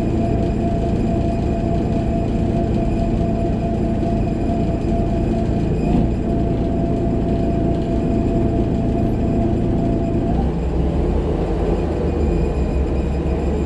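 Jelcz M121MB city bus heard from inside the passenger saloon while under way: the drivetrain drones steadily with a high whine over the engine's low rumble. About ten seconds in the whine dies away and a deeper engine rumble takes over, with one short knock about six seconds in.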